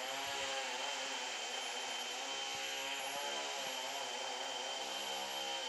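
Chainsaw engine running steadily at an even speed, a constant droning hum.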